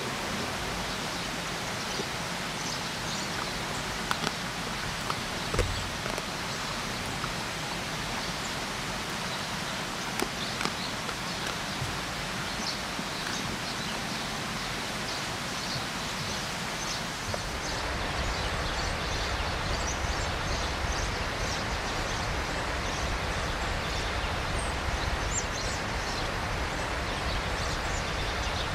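Steady rushing of river water, with small birds chirping. A few sharp clicks or snaps stand out in the first half, and about 17 seconds in the background turns fuller and deeper.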